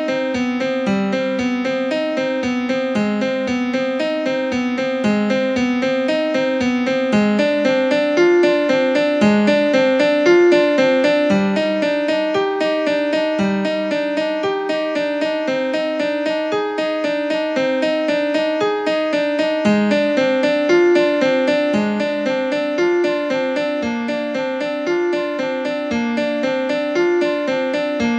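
Background piano music, many notes played in a steady flowing pattern.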